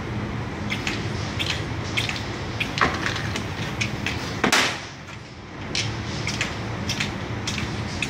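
Small glass nail-polish bottles clicking and clinking as they are handled at a manual filling nozzle and set into a tray, over a steady low hum. A short, loud hiss comes about four and a half seconds in.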